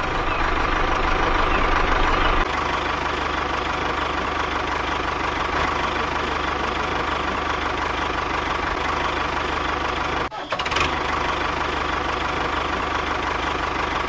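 Steady engine-like running sound with a constant whine, broken by a brief drop about ten seconds in.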